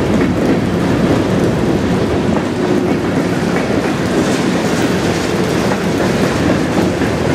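Norfolk Southern freight train's cars (covered hoppers, boxcars and tank cars) rolling steadily past at close range: a loud, continuous rumble of wheels on rail with light clicks over the rail joints.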